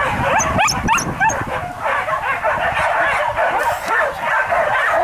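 A pack of hunting dogs yelping and baying in a continuous, overlapping chorus while giving chase after wild boar. A few sharp, rising yelps stand out about half a second to a second in.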